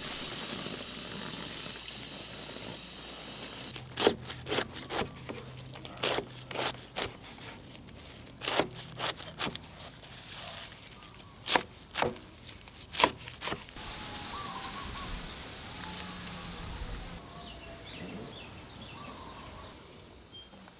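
Tap water running over taro leaves in a sink. After a few seconds it gives way to a knife cutting rolled taro leaves on a board: about fifteen sharp, irregular chops over some ten seconds. It then goes quiet, with faint short chirps near the end.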